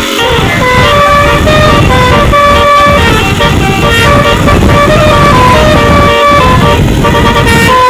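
Basuri telolet multi-tone bus horn playing a melody of short stepped notes, over heavy low-pitched noise.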